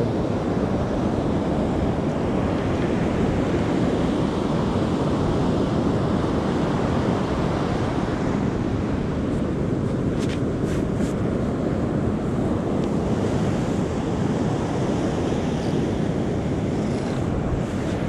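Steady surf washing against a rocky shore, with wind noise rumbling on the microphone.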